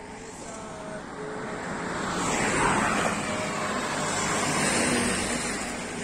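Road vehicles passing at speed on an expressway. The tyre and engine noise swells to a peak about two and a half seconds in, falling in pitch as it goes by, then swells again near five seconds before fading.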